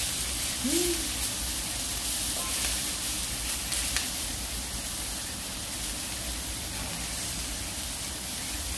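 Beef steak sizzling as it cooks: a steady hiss with small crackles of spattering fat.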